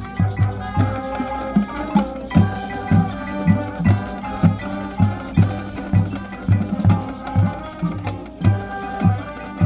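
High school marching band playing its field show: sustained brass and woodwind chords over a steady bass-drum beat of about two hits a second.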